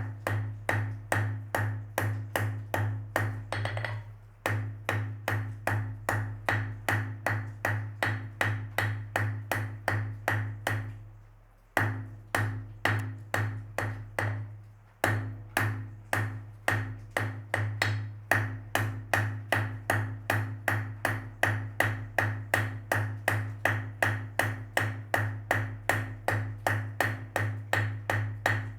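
Blacksmith's hammer striking on an anvil in a steady rhythm, about three blows a second, each with a ringing tone. The hammering breaks off briefly about four seconds in, again near the middle, and once more a few seconds later.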